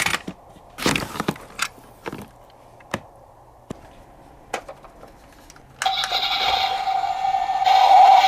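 Scattered plastic clicks and knocks from handling a toy police minicar, then about two thirds of the way in its electronic siren sound switches on as a loud, steady tone that carries on.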